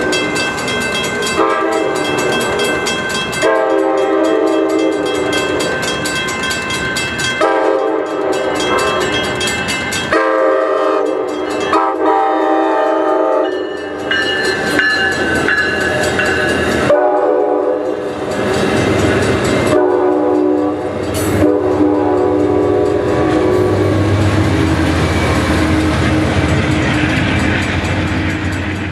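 Amtrak California Capitol Corridor passenger train sounding its horn in a series of long and short blasts for the grade crossing. The last blast ends a little after twenty seconds, and the rumble and wheel clatter of the train rolling past carry on from there.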